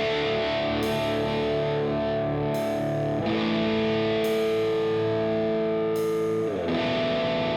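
Background rock music: distorted electric guitar holding sustained chords, changing chord about three seconds in and again near the end.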